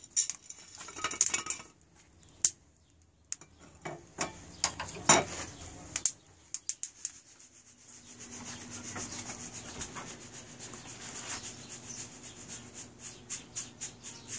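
Freshly roasted coffee beans being tossed in a stainless steel mesh strainer to cool. For the first several seconds there are scattered sharp clicks and clatters of beans and a metal can against the strainer. From about eight seconds in comes a steady rustle of beans swirling and rubbing against the mesh.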